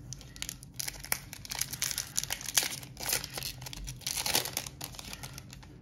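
Crinkly plastic wrapper of a Magic: The Gathering booster pack being handled and torn open.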